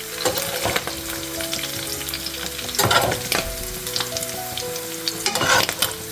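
Mola fish sizzling in hot oil in a frying pan, with a utensil scraping and knocking against the pan several times as the fried fish are lifted out.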